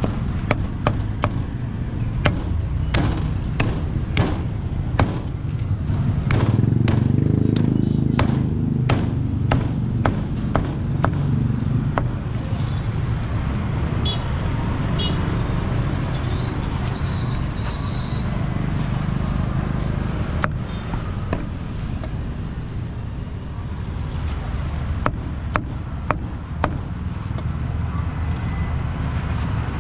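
Meat cleaver chopping roast pork on a thick wooden chopping block: a run of sharp, irregular knocks through the first dozen seconds and a few more later. Steady low rumble of road traffic behind.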